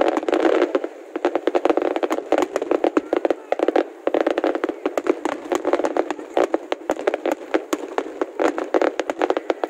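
Fireworks crackling and popping: a dense, unbroken run of sharp cracks, many a second.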